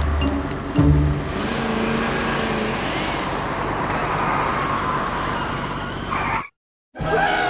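Engine sound effect of a car accelerating and running steadily as the truck drives off. It cuts out suddenly to silence for about half a second near the end.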